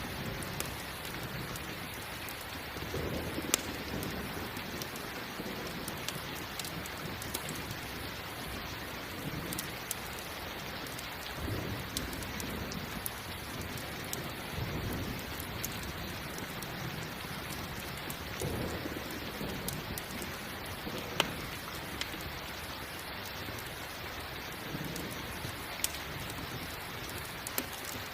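Steady rain with low rumbles of thunder swelling up every few seconds, and a few sharp pops from a crackling campfire.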